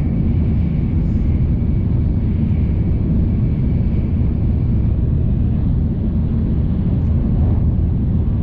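Steady low rumble of a Shinkansen bullet train's passenger cabin while the train runs, with a faint high whine that fades away about halfway through.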